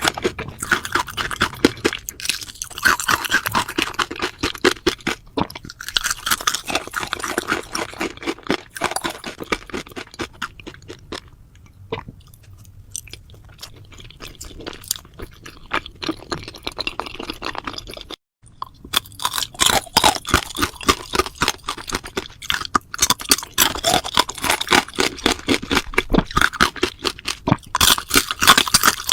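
A person chewing crunchy food close to the microphone, with fast, dense crunches. The crunching eases off for several seconds in the middle, then picks up again.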